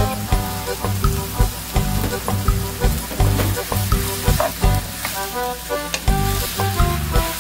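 Wet seaweed stems sizzling in a hot frying pan with minced garlic as they are stir-fried with a wooden spatula. Background music with a steady beat plays throughout.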